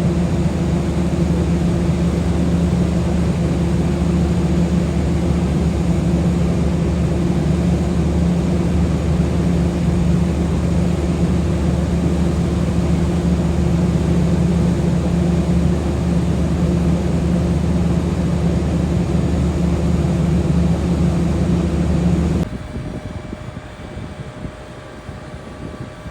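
Jet airliner engines running with a steady, loud hum that holds several unchanging low tones. It cuts off abruptly about 22 seconds in, leaving a quieter hum.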